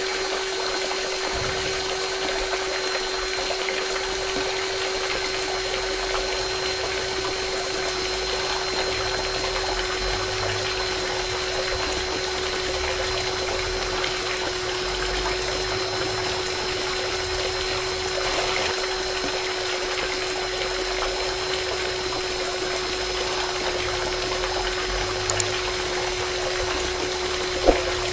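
Small DC hobby motor running steadily with a constant whine, driving a miniature pump that pours a stream of water from a clear tube into a sand trench. One sharp click near the end.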